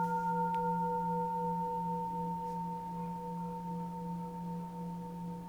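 Bronze Buddhist temple bell ringing on after a strike: a low hum with a slight waver and several higher overtones, fading slowly, with the highest overtones dying out about two seconds in.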